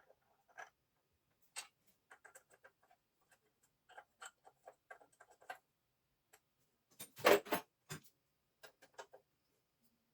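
Irregular light clicks and knocks of small metal parts and tools being handled during lathe work, with a louder clatter about seven seconds in.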